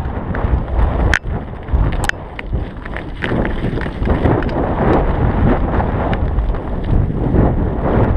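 Mountain bike rolling over a rocky gravel track, with heavy wind buffeting the microphone as a loud steady rumble. A few sharp clicks and rattles from the bike come through it, the clearest about a second and two seconds in.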